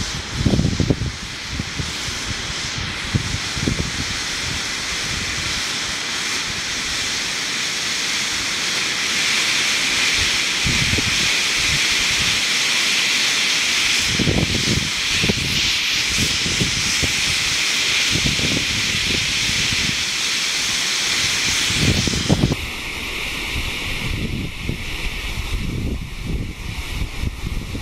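Enola Gaye EG18X smoke grenade burning with a steady hiss as the red smoke pours out, with gusts of wind rumbling on the microphone. About 22 seconds in, the hiss suddenly becomes duller and quieter.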